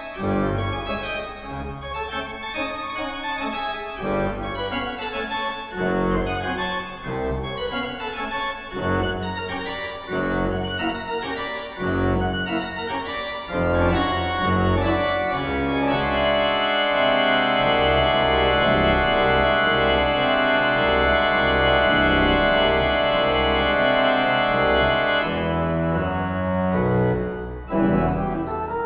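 Pipe organ playing fast, dense runs of notes, then from about halfway a loud held full chord over rapidly repeated bass notes, which breaks off shortly before the end.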